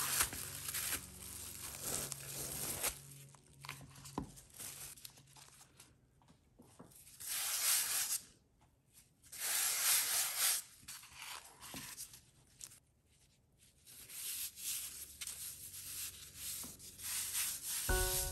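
Plastic cling film rustling and crinkling as it is peeled off a slab of cookie dough, over soft music at first. Then a hand rubs flour across a smooth work surface in two longer swishing strokes around the middle.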